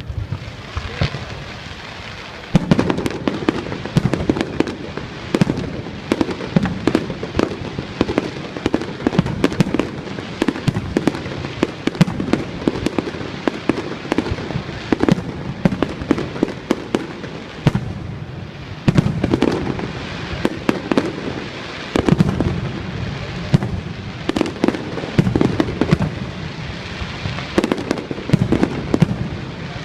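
Fireworks going off in a rapid, continuous volley of sharp bangs and crackles. It starts about two and a half seconds in, with louder clusters of reports every few seconds.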